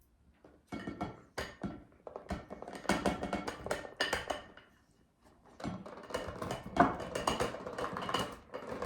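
A plastic Tupperware container of sauce-coated nuggets clattering and knocking as it is handled, in quick runs of sharp knocks with a pause of about a second near the middle. The nuggets are stuck to its bottom with sauce.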